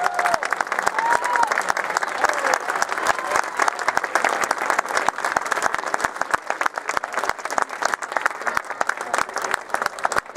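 Audience applauding: dense, steady clapping, with a couple of brief calls over it in the first second and a half.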